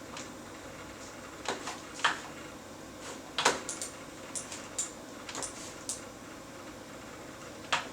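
A string of short, irregular clicks and light knocks, about ten of them, the sharpest about three and a half seconds in, over a steady low room hum.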